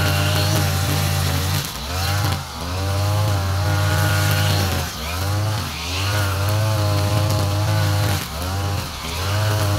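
Backpack brush cutter's petrol engine running at high speed while cutting grass with nylon trimmer line; its pitch dips briefly and climbs back three times, about every three seconds.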